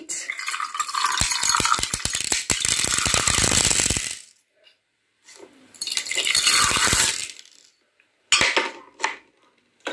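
A handful of small dry seeds poured from a glass bowl into a glass of water, rattling and pattering against the glass and into the water for about four seconds. A second, shorter pour follows after a brief pause, then a few separate clinks near the end.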